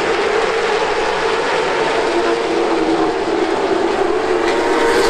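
NASCAR Late Model stock car's V8 engine running at racing speed, heard from inside the car: a steady drone whose pitch rises slightly near the end.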